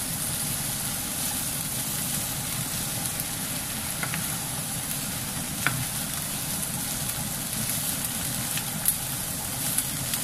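Sliced bell peppers, carrot and onion sizzling in oil in a nonstick frying pan as a spatula stirs them, with a steady low rumble underneath. A few sharp clicks of the spatula against the pan come through; the loudest is near the end.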